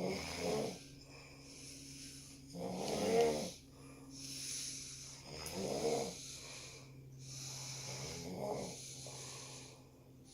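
Snoring: four rasping snores, one about every two and a half to three seconds, the second the loudest, with a soft breathy hiss between them.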